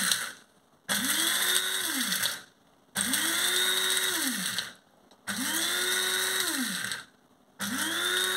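Small electric blade coffee grinder pulsed in short bursts of about a second and a half, grinding roasted whole spices into curry powder. Each time the motor whirs up to speed and winds down again when released, with brief pauses between bursts.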